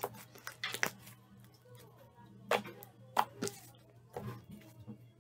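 Pink butter slime being stretched by hand and then pressed on a tabletop with a flat card, giving about seven scattered sharp pops and clicks, several of them close together a little past halfway.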